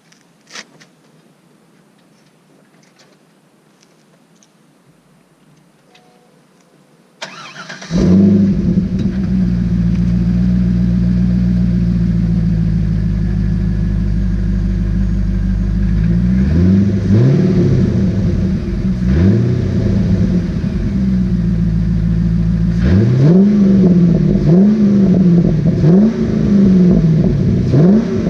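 2001 Corvette Z06's LS6 V8 through a Borla aftermarket exhaust, started up: a few faint clicks, then the starter cranks briefly about seven seconds in and the engine catches and settles into a steady idle. Later it is revved in short throttle blips, several in quick succession near the end.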